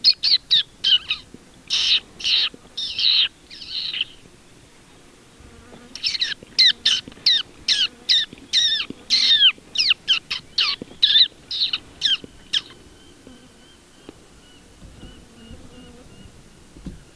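Hand-blown fox whistle (Down Under predator call) squealing in short pulses that imitate a distressed rabbit, a lure to draw a fox in: a first bout of squeals, a pause of about two seconds, then a longer run of quick falling-pitched squeals. After that only a faint steady high whine remains.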